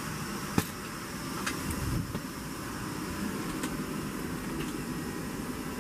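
Steady rushing hum of a parked airliner's cabin air system, with a faint high whine over it and a few light clicks, the sharpest about half a second in.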